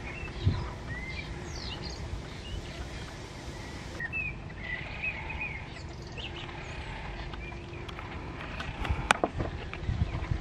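Small birds chirping and trilling in short, scattered phrases, over a steady low rumble. A sharp click stands out about nine seconds in.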